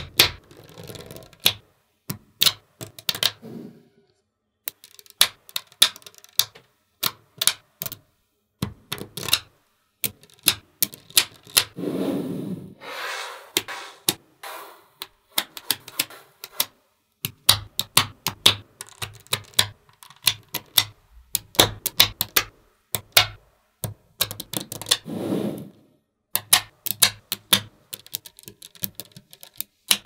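Small magnetic balls clicking sharply as they snap onto one another, in quick irregular runs of clicks. Twice there is a longer rustling, sliding stretch between the clicks.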